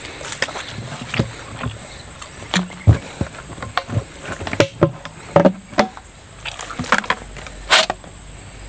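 Irregular sharp knocks, clicks and rustles from handling PVC-pipe eel traps and a plastic bucket over dry grass, as eels are taken from a trap into the bucket.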